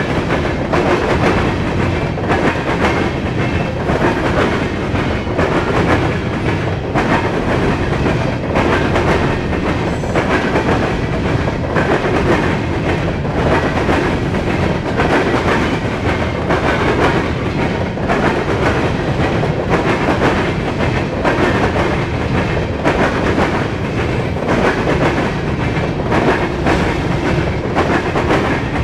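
Norfolk Southern covered hopper cars rolling past at close range: a loud, steady rumble of steel wheels on rail, broken by frequent clacks as the wheels cross rail joints.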